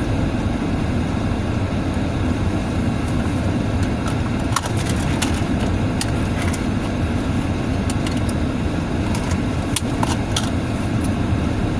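Steady road and engine noise of a car driving on a snowy road, heard from inside the cabin, with a few scattered sharp clicks.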